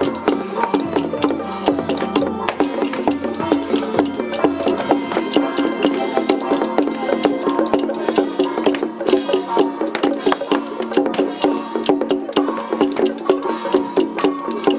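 Traditional temple-festival music: a wood block struck in a fast, even rhythm with percussion, over a sustained melody line.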